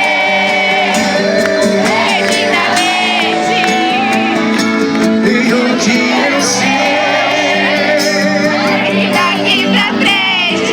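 Live band music playing between sung lines of a pop song, with a crowd singing and cheering along.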